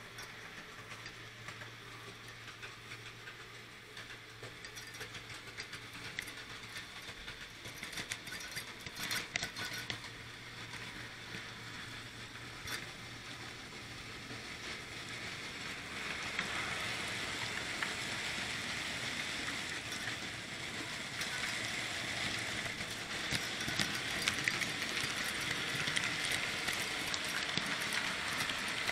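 N gauge model train running along the track, picked up by a camera riding on it: a steady whir and hiss of the small motor and wheels, with a few sharp clicks over rail joints or points, growing louder in the second half.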